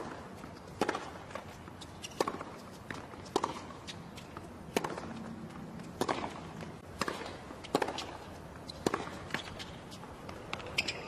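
Tennis rally on a hard court: sharp pops of the ball off the rackets and its bounces, about one every second, over a steady low hum of the stadium background.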